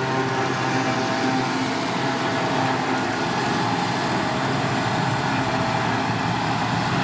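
John Deere 6810 self-propelled forage harvester running steadily under load as it picks up and chops grass, blowing it through its spout into a trailer.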